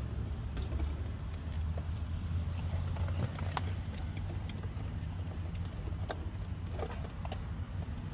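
Electrical tape being pulled off the roll and wrapped around wiring, with scattered small clicks and rustles of wires being handled, over a steady low hum.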